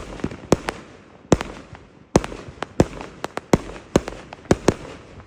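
Aerial fireworks bursting in a rapid, irregular string of sharp bangs, a dozen or more, often several a second, with a rumble hanging between them.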